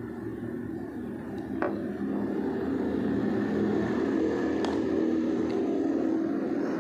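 A steady low engine drone that swells about two seconds in and holds, with a couple of light clicks over it.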